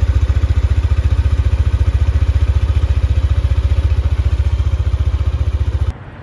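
Motorcycle engine idling, its exhaust giving a loud, steady, deep pulsing of about fourteen beats a second. It cuts off suddenly near the end.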